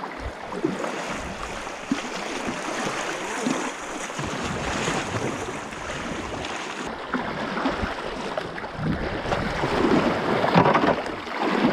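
Fast, swollen river water rushing around a kayak, with paddle strokes splashing. Near the end the rush grows louder as the kayak passes close by a boulder, water spraying off the rock.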